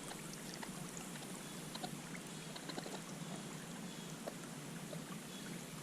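Quiet, steady wash of flowing river water, with scattered faint ticks.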